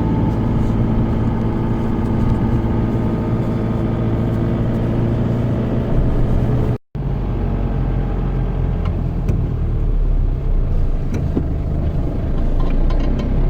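Car engine running with road noise while driving, steady throughout, with a brief break in the sound about seven seconds in.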